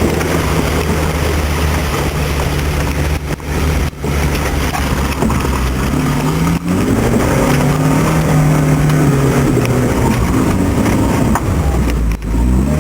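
Suzuki Samurai engine running as the 4x4 drives off-road, its pitch rising and falling as the throttle changes. The sound drops out briefly a few times, around the fourth, seventh and twelfth seconds.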